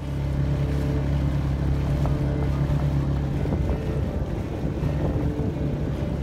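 Small dinghy outboard motor running steadily under way, with wind and water noise.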